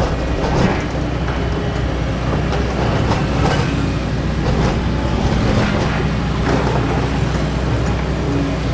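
Doosan DX225LCA excavator's diesel engine running steadily under working load, with scattered short knocks and scrapes from the working machine.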